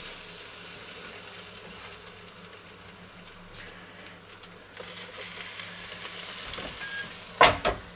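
Faint sizzling from toasts on the hot baking tray of a Tefal OptiGrill Elite contact grill, over a low steady hum. Near the end comes a short loud clunk as the grill's lid is brought down.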